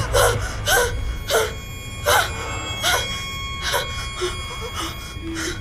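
A person gasping and whimpering in short, ragged breaths, about one every 0.7 seconds, over a faint steady high tone.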